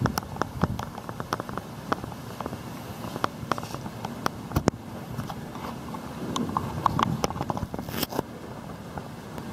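Footsteps crunching on a gravel path, with irregular clicks and crackles from the handheld camera, over a steady outdoor hiss.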